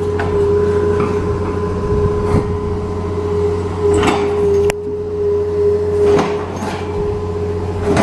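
Tipped-over excavator's diesel engine running steadily with a constant hum and a steady higher tone, with a few knocks and clanks as the machine moves its boom.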